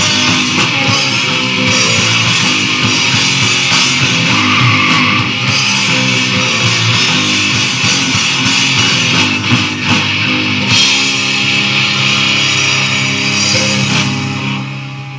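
Rock song with guitar and drums, played back from a cassette recording. About eleven seconds in, the busy playing gives way to a held chord that rings on and fades out near the end.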